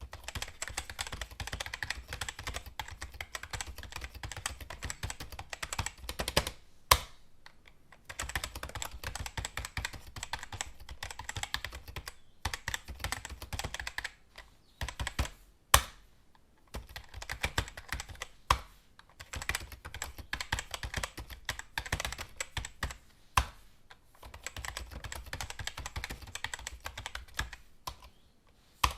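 Computer keyboard typing in rapid runs of key clicks broken by short pauses, with an occasional single louder key strike standing out, about four times.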